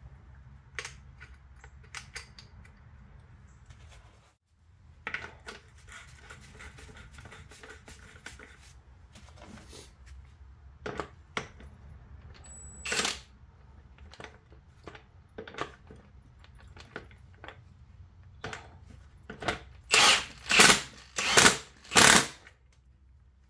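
Scattered metal clicks and clanks from hand tools working a car's strut and coil-spring assembly, with a brief silent break about four seconds in. Near the end come four loud short bursts about two-thirds of a second apart.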